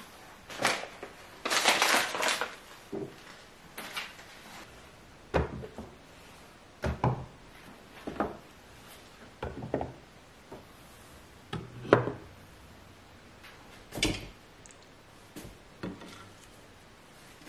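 Kitchen items being put away on a counter: a rustle of packaging near the start, then a series of separate knocks and clinks as glass spice jars with wooden lids are set down in a wooden rack.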